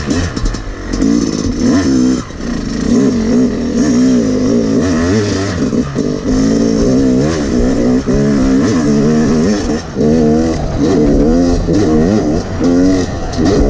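Yamaha YZ250X two-stroke dirt bike engine revving hard, its pitch rising and falling over and over as the rider works the throttle along the trail, heard from on the bike.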